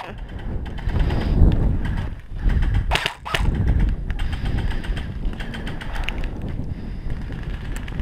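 Airsoft gunfire on a helmet camera: two sharp snaps about three seconds in and faint rapid clicking afterwards, over a low rumble of wind and movement on the microphone.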